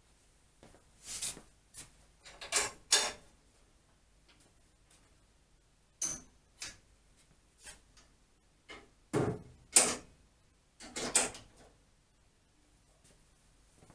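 Clunks, knocks and sliding scrapes as the hinged tables and locking levers of a Holzmann 305 Pro combination jointer-planer are swung down and set by hand, with the machine switched off. The sounds come in several short bouts with quiet gaps between them, the loudest about ten seconds in.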